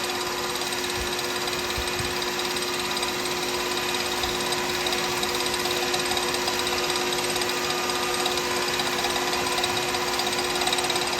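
Wood lathe running at a steady speed of about 3,000 RPM with a constant motor hum, as fine 2,000-grit abrasive is held dry against the spinning pen blank.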